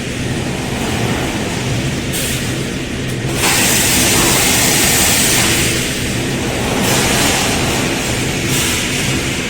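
Automatic wire mesh welding machine running: a steady low hum under a loud hiss that swells about three and a half seconds in and eases off a few seconds later.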